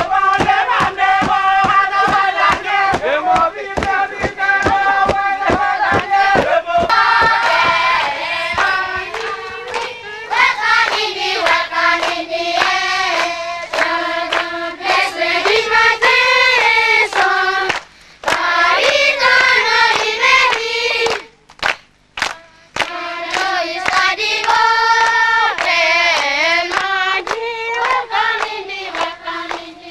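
A group of villagers singing together in unison with steady rhythmic hand-clapping, about three claps a second. The singing breaks off briefly twice in the second half.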